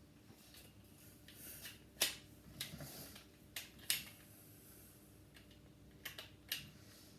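Scattered sharp clicks and light taps of lightsaber hilt parts being handled and fitted together, with the loudest clicks about two and four seconds in.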